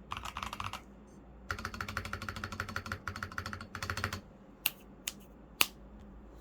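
NJ80 mechanical keyboard with stock Fantasy Virus switches and foam dampening being typed on: a short burst of keystrokes, then a longer run of fast typing. Near the end come three separate, louder single key strikes, the last the loudest.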